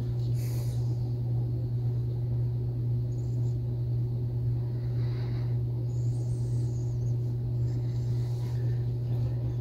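A steady low hum, with a few faint soft handling sounds from fingers working a rubber O-ring onto the metal spinner head of a spincast reel.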